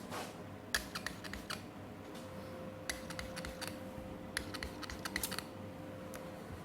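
Light clicks and taps in three short flurries, the sound of hand tools and small parts being handled during disassembly, over a faint steady hum.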